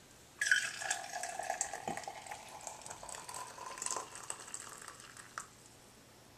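Brewed herbal tea poured from a glass measuring cup through a metal mesh strainer into a ceramic mug, starting about half a second in. The pitch of the stream rises slowly as the mug fills, and the pour stops about five seconds in.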